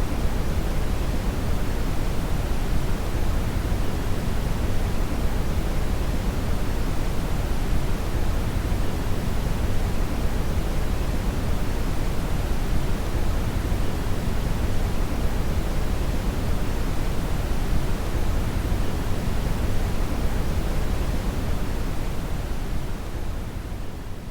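Synthetic brown (red) noise: a steady, deep hiss weighted toward the low end. It starts to fade out near the end.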